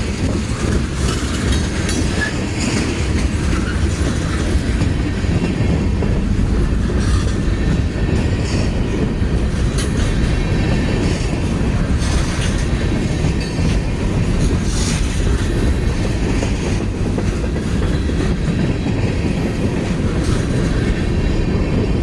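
Freight train rolling by, a steady low rumble with its wheels clacking over the rail joints.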